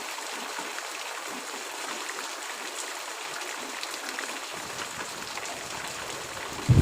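Steady gentle rain: an even hiss with scattered small drips. Just before the end, a loud, deep rumble of thunder breaks in suddenly.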